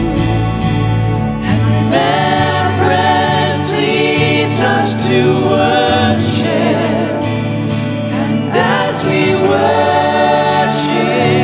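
A live worship band plays a slow contemporary worship song, with several singers singing together over the band.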